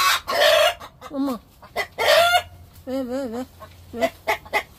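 Chickens calling loudly in agitation: harsh squawking calls near the start and about two seconds in, a wavering call about three seconds in, then a quick run of short clucks. The rooster's cry is unlike his usual one, and the flock is clearly disturbed.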